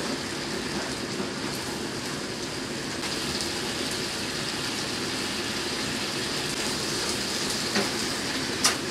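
Bitter melon stir-fry sizzling and simmering steadily in the pan as its liquid is cooked off, with a couple of sharp clicks near the end.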